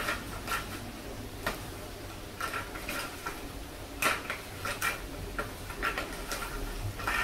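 Spoon clicking and tapping against a small bowl in irregular light clicks as capsules are stirred in water.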